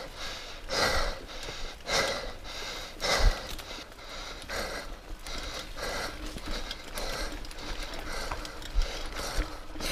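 A mountain biker breathing hard, about one heavy breath a second, while straining up a steep climb, with mechanical clicks and rattles from the bike underneath.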